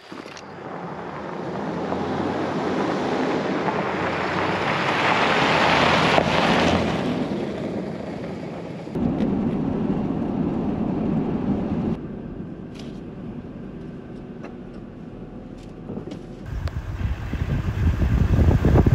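Car driving on a highway, steady tyre and wind noise heard from inside the cabin. The level jumps abruptly a few times, with a quieter stretch about two-thirds of the way through.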